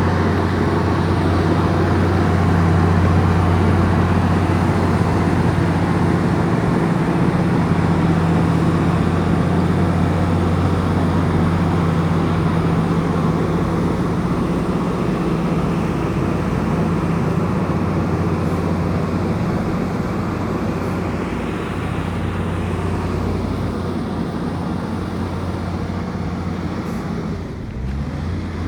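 Komatsu bulldozer's diesel engine running steadily with a deep, even hum, growing a little quieter over the second half.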